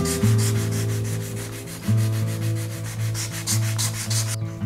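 Sandpaper rubbed by hand over the dense wenge wood of a hand-made plane body, in rapid back-and-forth strokes. The strokes stop shortly before the end.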